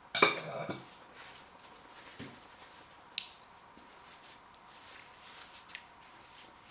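A man gasps loudly once right at the start, his mouth burning from Carolina Reaper chilli heat, followed by quieter breathing and a few small clicks.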